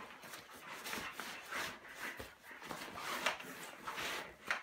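Nylon fabric rustling and swishing in irregular bursts as a sleeping quilt is stuffed into a backpack.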